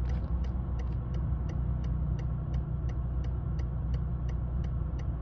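A car's indicator ticking evenly, about three clicks a second, over the low steady rumble of the idling engine in the cabin.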